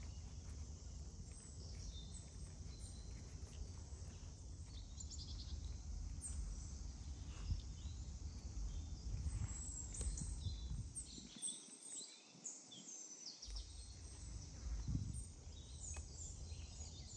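Small birds chirping, with short high calls coming more often in the second half, over a low steady rumble of outdoor background noise. The rumble drops out for about two seconds midway.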